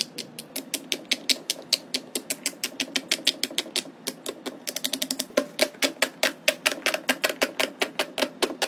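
Silicone pop-it fidget toy bubbles being pressed in quick succession, a rapid run of small popping clicks, several a second, getting a little faster and fuller about halfway through.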